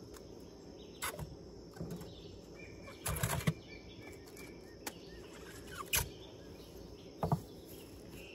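Heads of cabbage handled and dropped into a plastic bucket: a run of dull thumps and leafy rustles, about six in all, the loudest cluster about three seconds in.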